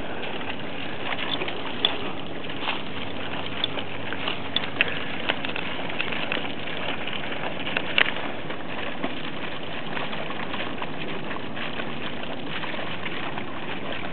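Steady outdoor background noise over the open marsh, with a faint low hum underneath and a scattered few short ticks and brief high chirps.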